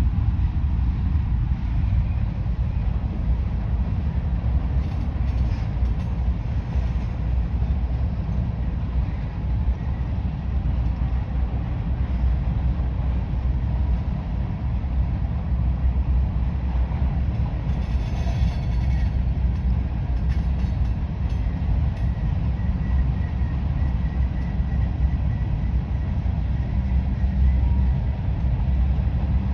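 Norfolk Southern grain train's hopper cars rolling past, a steady low rumble of wheels on rail.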